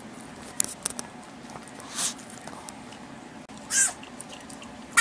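Small dog lapping from a ceramic mug: scattered short wet clicks, with two brief squeaky sounds about two and four seconds in.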